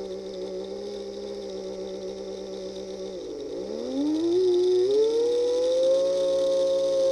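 OO gauge Class 37 model locomotive's small electric motor and gear train running with a steady whine; about three seconds in the pitch drops sharply almost to a stop, then rises again to a higher, louder whine. The motor's running is sporadic.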